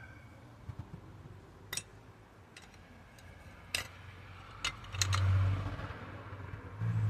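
Several sharp metallic clicks and clinks from the aluminium back plate and door check strap being worked into place inside a car door, with a low rumble about five seconds in.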